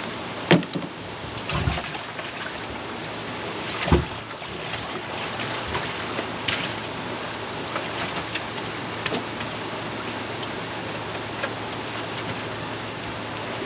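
Steady rush of flowing river water, with a few sharp knocks, the loudest about half a second in and about four seconds in.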